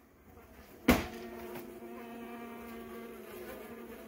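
A sharp knock about a second in, then honeybees buzzing in the hive: a steady, pitched hum.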